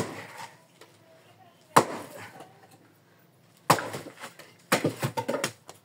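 An axe chopping firewood: sharp splitting blows about two seconds apart, the last one followed by a quick rattle of smaller knocks.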